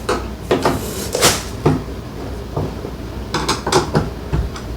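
Irregular metal clinks and taps of a Sanus TV wall-mount support bracket, its screws and spacers being handled and screwed onto the back of a television.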